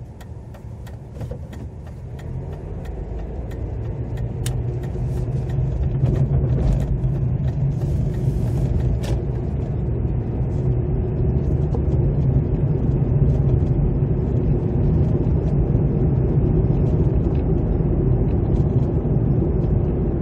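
A car pulling away from a traffic light: engine and road noise grow louder over the first six seconds as it gathers speed, then run steadily as it cruises.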